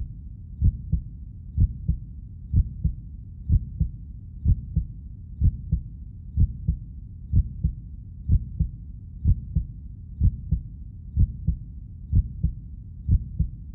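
A slow heartbeat-like double thump, repeating about once a second over a low rumble, used as a suspense sound effect.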